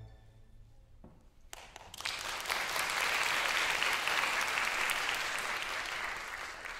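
Audience applauding. It starts about a second and a half in after a short lull, builds quickly, and eases off slightly near the end.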